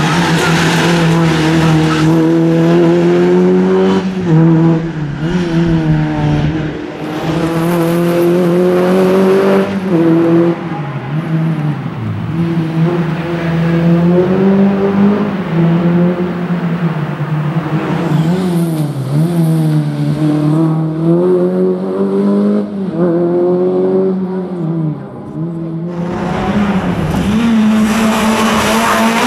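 Renault Clio race car's engine revving hard and dropping back again and again, rising and falling in pitch as the car accelerates and lifts between tight cone gates.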